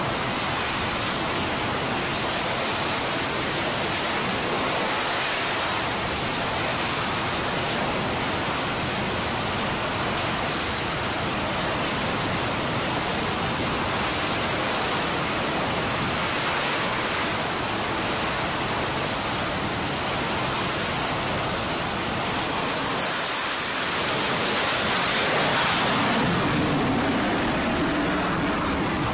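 F/A-18 Super Hornet's twin jet engines running at high power on the carrier's steam catapult, a steady rushing noise. It swells louder near the end as the jet is launched off the deck.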